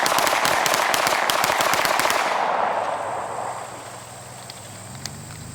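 Rapid Smith & Wesson 9mm pistol fire, a fast unbroken string of shots that stops about two seconds in, its echo fading over the next second.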